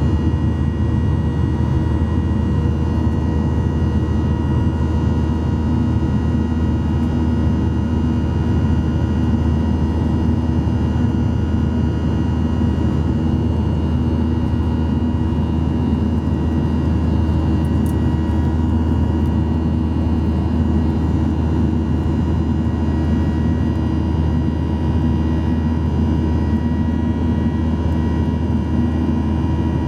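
Boeing 737-800's CFM56-7B turbofan engines running at steady power, heard inside the cabin as a constant loud rumble with a steady whine on top.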